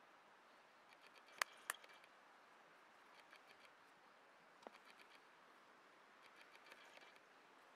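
Near silence: faint sticky handling sounds of hands kneading and shaping soft bannock dough. Two sharp clicks come about a second and a half in, a fraction of a second apart, and a fainter one comes a few seconds later.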